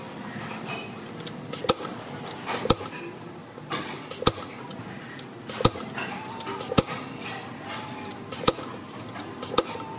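Factory machinery running with a steady hum, broken by sharp mechanical clicks or knocks roughly every second or so, about seven in all.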